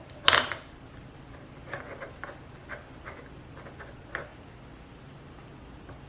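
Metal hardware of a telescope mount being handled and adjusted: one sharp clatter near the start, then a scattered series of small clicks and taps.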